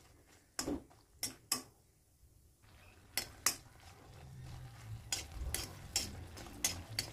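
Dry red chillies being stirred in a little oil in a pan, a metal spoon clinking and scraping against the pan. There are a few sharp clicks in the first half and a quicker run of them in the second half, over a low hum that builds from about three seconds in.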